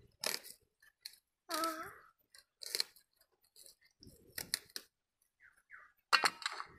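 Dry skin of a small red onion being peeled off by hand: scattered short crackles and tearing rustles, with a brief voice-like call about a second and a half in.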